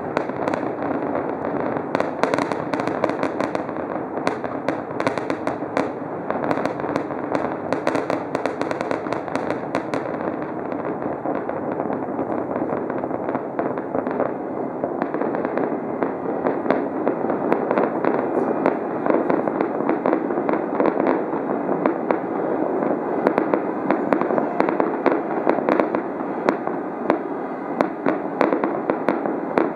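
Fireworks display: a continuous barrage of bangs and crackling from many shells bursting, with sharp cracks coming thickest in the first ten seconds or so.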